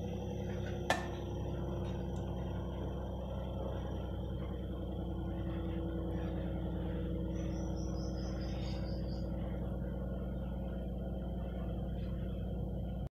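Steady low hum of room noise, with one sharp click about a second in.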